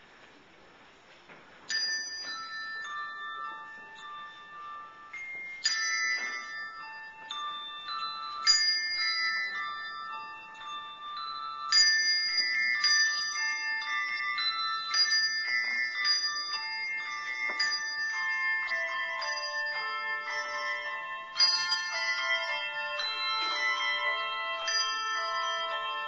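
Handbell choir ringing a tune: after a quiet start, single bell notes come in about two seconds in and ring on, building to fuller, overlapping chords near the end.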